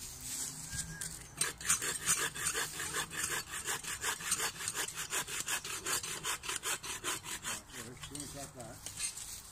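Folding buck saw cutting through a dry dead branch by hand, in quick, even strokes of about four a second that start about a second in and die away near the end.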